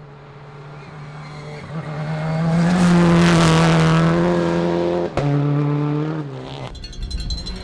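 Rally car engine running hard at high revs, getting louder over the first few seconds and holding there. There is a brief break about five seconds in, and the sound changes near the end.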